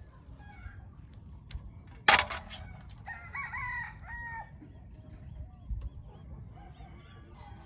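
A rooster crowing: a crow of several short pitched parts about three seconds in, with fainter crowing near the end. A single sudden loud noise comes about two seconds in.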